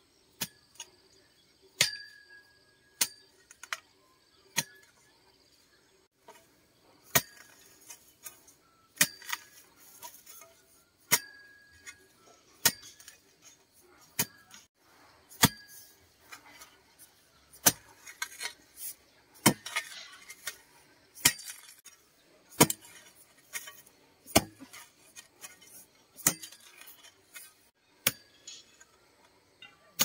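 Long iron digging bar jabbed down into hard ground to dig a hole: a sharp metallic clink with each stroke, about one every one to two seconds, several of them ringing briefly.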